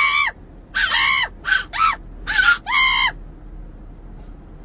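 A Chihuahua puppy gives a run of about six short, high-pitched yelps, each rising and falling in pitch. The yelps stop about three seconds in.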